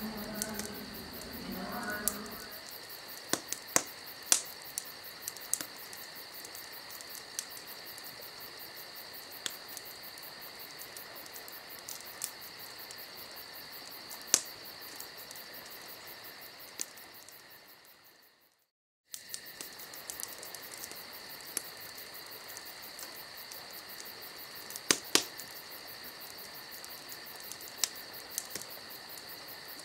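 Steady high insect chirring, like a chorus of crickets, with scattered sharp clicks. It fades out about two-thirds of the way through and comes back suddenly after a second of silence.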